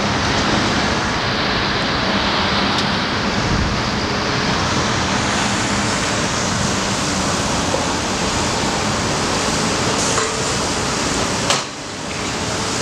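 Steady outdoor noise of city traffic and construction-site machinery with a low steady hum, and a click about a second before the end.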